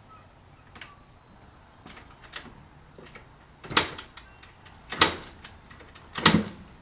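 Yamaha Blaster 200's two-stroke engine being kicked over three times, about a second and a quarter apart, without firing, after a few light clicks.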